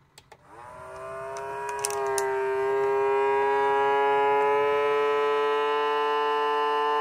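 Ambiano vacuum food sealer's pump motor starting and drawing the air out of the bag: a hum that rises in pitch and grows louder over the first few seconds, then holds as a steady whining drone. There are a few clicks about two seconds in.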